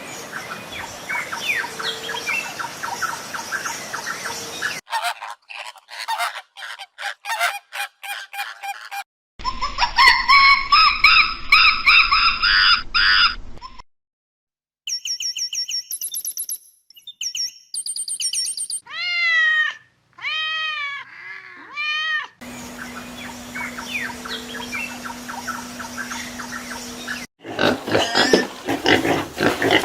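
A series of different wild animal and bird calls, cut abruptly one after another in sections of a few seconds each. Chirps over outdoor ambience give way to a fast run of calls, a drawn-out pitched call, short repeated calls, a few arched calls that rise and fall in pitch, more chirping over ambience, and a dense burst of calls near the end.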